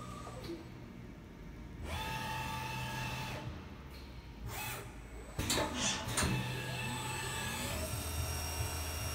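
Spinner PD CNC turning center running: an electric drive whine in several steady pitches starts about two seconds in, a few sharp clunks follow a little past the middle, and near the end a whine rises in pitch and levels off as a drive spins up.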